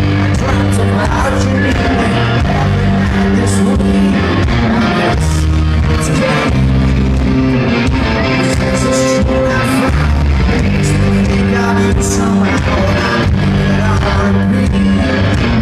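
Rock band playing live in a large hall: a low bass and guitar riff over drums and cymbals, with singing.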